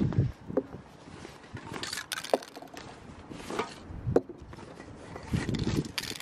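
Aerosol spray paint cans set down one at a time on a wooden cable-reel tabletop: several separate knocks and metallic clinks as the cans touch the wood and each other.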